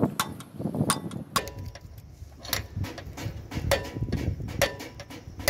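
Hand hammer striking a drift against the spindle nut at a truck wheel hub: sharp metallic knocks, roughly one or two a second at an uneven pace, some with a brief ring.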